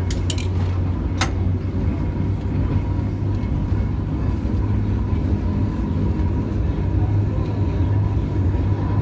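Historic tram running along its rails, heard from inside the car: a steady low rumble with a faint steady whine above it. A few sharp clicks come in the first second and a half.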